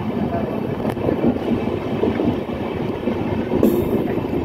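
Passenger coaches of an Indian Railways express running through a station without stopping: a steady rumble of wheels on rail with a few sharp clicks, and a brief hiss about three and a half seconds in.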